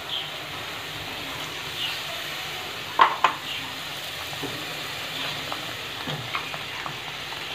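Thick curry masala sizzling steadily in a black iron kadai, with a steel spatula stirring and scraping, and a metal clank about three seconds in.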